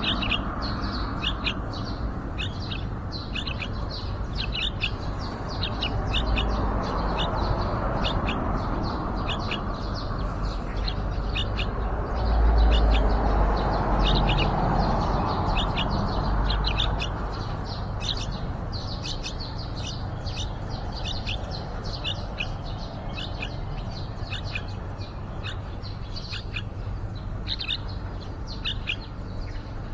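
Yellow-vented bulbul chirping: a steady run of short, high chirps, a few each second, over a low background rumble that grows louder for a few seconds midway.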